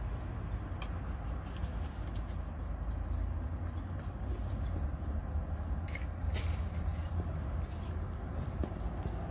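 A steady low rumble, with a few short splashes and scrapes as a landing net is worked through the water at the bank's edge to land a small roach.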